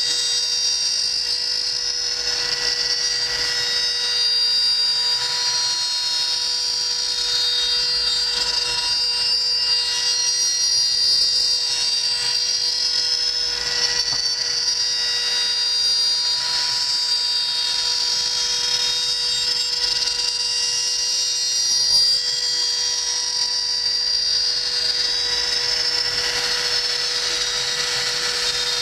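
Router spindle of a CNC machine running at a steady high whine while its bit mills hardwood.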